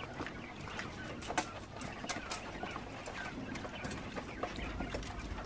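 A flock of young quails making soft clucking and chirping calls, with sharp clicks from pecking and scratching, thickest between about one and two and a half seconds in.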